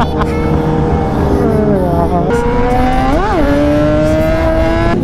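A superbike's inline-four engine running at high revs. Its pitch dips about two seconds in, then climbs steadily as it pulls, with a quick rev blip partway through.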